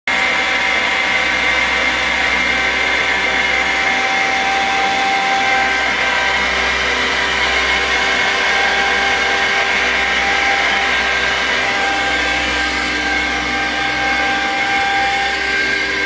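York YCIV chiller's screw compressor running, a steady loud mechanical noise with several high steady whining tones on top; the sound is held to be abnormal for this compressor.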